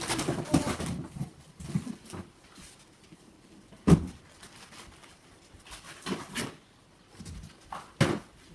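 Knocks and clatter of steel trampoline frame tubes being handled during assembly. The loudest knock comes about four seconds in and another near the end, with shorter rattles and rustling between.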